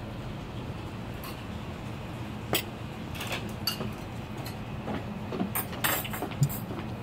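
Scattered light clinks and taps of tableware (bowls, plates and chopsticks) on a dining table, irregular and growing busier over the second half, the sharpest one near the end, over a steady low hum.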